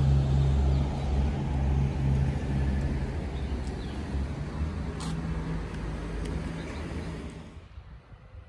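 A road vehicle's engine running close by, a low steady rumble that starts suddenly and fades away over several seconds. There is a single sharp click about five seconds in.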